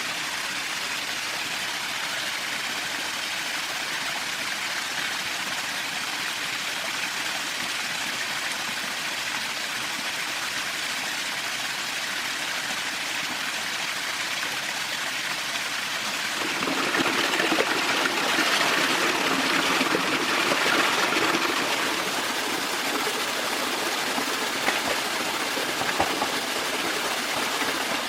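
Running water of a stream, a steady rushing. About sixteen seconds in it grows louder and fuller, with a few small knocks near the end.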